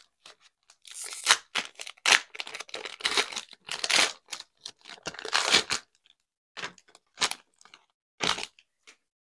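Foil trading-card pack wrapper (2023 Topps Allen & Ginter) being torn open, in a run of crinkly rips. It is followed by a few short, separate flicks as the cards are handled.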